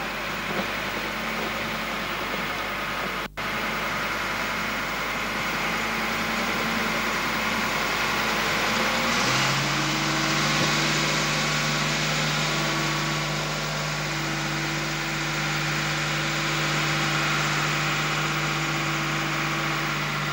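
Engine of a crane-type balloon launch vehicle running steadily as it manoeuvres holding the gondola. About nine seconds in, its note settles into a steady low hum. The sound cuts out for an instant about three seconds in.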